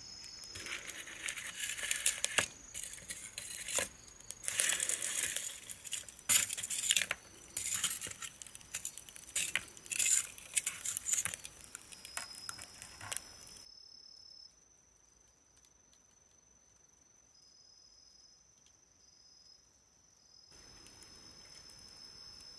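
Metal clinking and rattling as a wire grill net and metal tongs are handled over a clay shichirin charcoal grill, in dense bursts for about the first thirteen seconds and then stopping. A steady high-pitched insect trill runs underneath.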